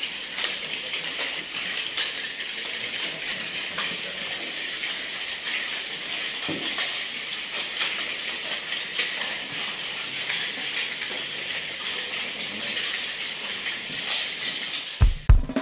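Steady dense clatter of many spoons clinking and scraping on plastic plates as a large hall full of people eat together without talking. Music starts suddenly just before the end.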